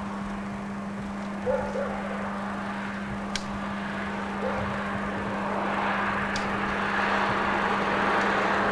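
Distant steam train working across open country: a steady rushing sound that grows louder from about halfway through. A goose honks about a second and a half in, and again faintly a few seconds later.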